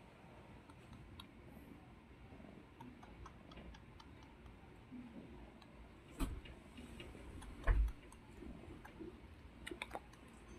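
Ginger kitten suckling at a cat's teat: faint, irregular clicking and smacking sounds, with two dull thumps a little past the middle.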